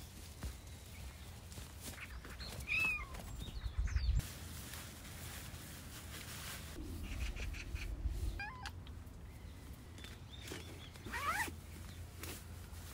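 A cat meowing three times, short calls a few seconds apart, the last one rising in pitch. A few dull low bumps are heard along with them.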